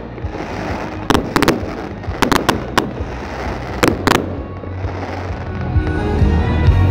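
Aerial fireworks bursting: sharp bangs in quick clusters of two or three through the first four seconds, over a continuous rumble. Music with a heavy bass comes up from about five seconds in.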